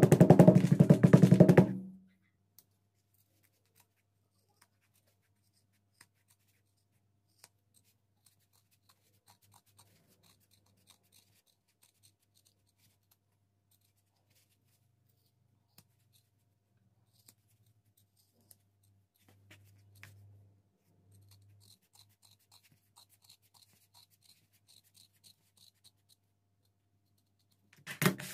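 Rapid, loud tapping of a brass-faced metal tool on glued leather stripes for about the first two seconds, pressing them down. After that it is mostly quiet, with faint scattered clicks and snips as the leather is trimmed with shears. A short clatter comes at the very end.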